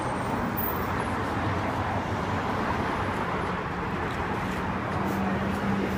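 City street traffic noise: a steady hum of passing cars, with a low steady drone joining about four seconds in.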